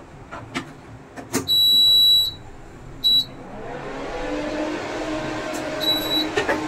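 Induction cooker's buzzer beeping while it is powered up for testing: a long high beep, then a short one, and another short beep near the end. A few clicks come before the first beep. About halfway through, a hum sets in and grows louder as the cooker starts running.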